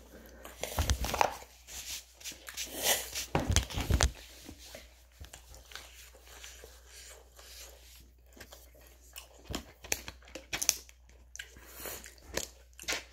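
Eating sounds: a person chewing food, with scattered clicks and rustles from a plastic fork and a plate being handled, and dull thumps about a second in and again near four seconds.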